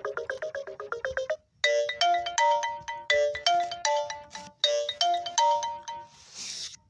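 Lenovo A5 smartphone alarm tones playing. A fast run of chiming notes ends about a second and a half in, and after a short break another alarm melody begins: a short phrase of bell-like notes repeated about every second and a half, closing with a brief rushing swell near the end.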